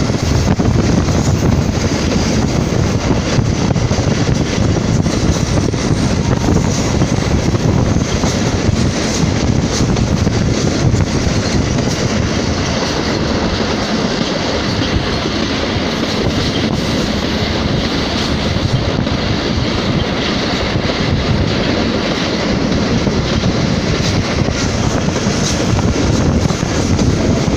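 Passenger train running at speed, heard from an open coach window: a steady rush of wheels on the track with faint clicks over the rails.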